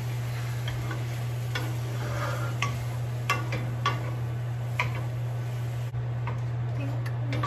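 Wooden spatula stirring shrimp and garlic in a frying pan, knocking against the pan a handful of times at uneven intervals, over the light sizzle of sautéing and a steady low hum.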